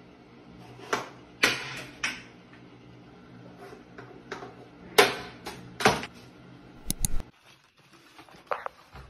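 A cat batting at small objects on a tiled ledge: sharp taps and knocks, three in quick succession and then three more a few seconds later, followed by a brief quick rattle of clicks.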